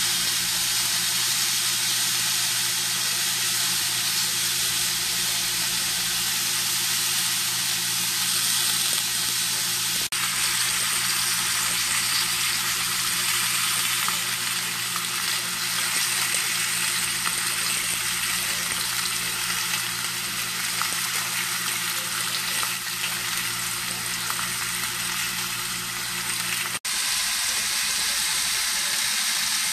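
Steak sizzling in a hot cast iron grill pan: a steady frying hiss, broken by two brief dropouts, about ten seconds in and near the end.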